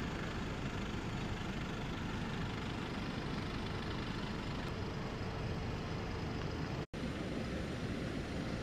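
Steady hum of vehicle engines and traffic, with a brief dropout about seven seconds in.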